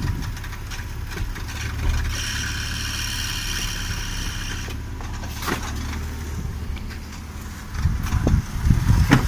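Toyota 1JZ-GE straight-six idling, with a high squeal from the accessory drive belt area lasting a couple of seconds about two seconds in. The owner takes the squeak for a failing drive belt tensioner. A louder irregular rumble comes near the end.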